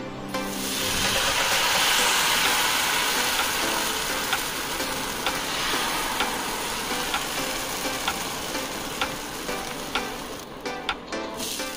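Wheat-flour chila batter sizzling as it hits a hot oiled non-stick pan and is spread out. The sizzle rises to its loudest within the first couple of seconds, then slowly dies down.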